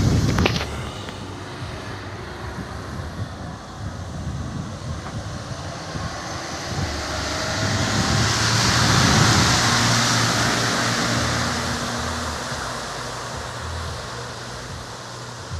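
A vehicle engine runs steadily with wind rushing across the microphone. A loud gust dies away in the first second, and a hissing rush swells in the middle and fades again.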